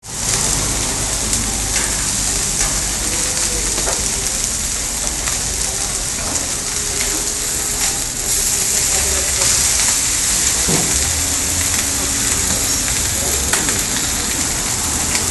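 Meats and buns sizzling steadily on a hot flat-top griddle, with a metal spatula scraping and clicking against the plate now and then.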